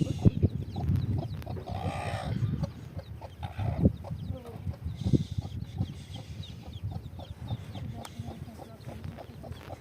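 Chickens clucking, with one longer, louder call about two seconds in and shorter clucks after it.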